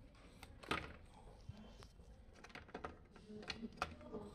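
Light clicks and knocks of a finned aluminium motor controller being handled and set into a plastic motor cover. The loudest comes just under a second in, with several more in the last second and a half.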